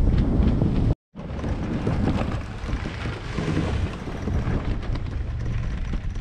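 Wind buffeting the microphone over a steady rush of wind and water aboard a sailboat under way in choppy sea. It drops out for a moment about a second in.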